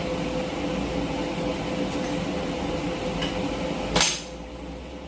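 Steady machine hum with a clear mid-pitched tone, and one sharp knock about four seconds in, after which the background hiss drops away.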